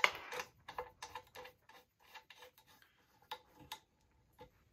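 Light clicks and rubbing of a screw being turned by hand to fasten the heating element into a sublimation mug press: a sharp click at the start, then irregular small ticks, with a few more clicks past the three-second mark.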